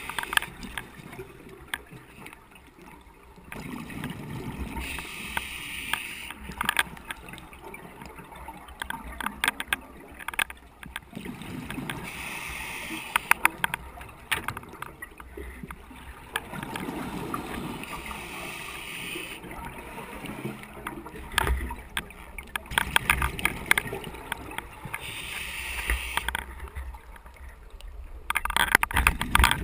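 Scuba diver's regulator breathing underwater: a hissing inhalation alternating with a low bubbling exhalation every five seconds or so. Through it, runs of sharp clicking from the diver's camera rattling in its housing.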